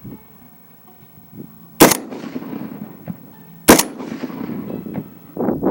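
PSA AK-47 rifle firing 7.62x39 PPU brass-case ammunition, two single shots about two seconds apart. Each shot has a fading echo.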